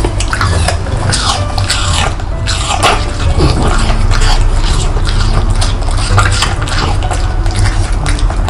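French bulldog chewing a treat and smacking its lips, with many quick, wet clicks of mouth and tongue.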